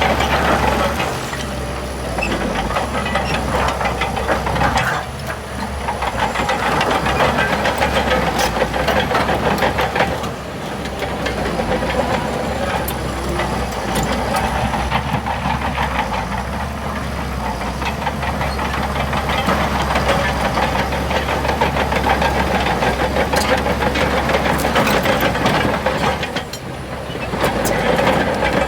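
Shantui DH17C2 crawler bulldozer working: its diesel engine running under load with a steady rumble, overlaid by rapid clanking and clicking from the steel tracks and blade. The engine eases off briefly a few times, near 5, 10 and 26 seconds in, then picks up again.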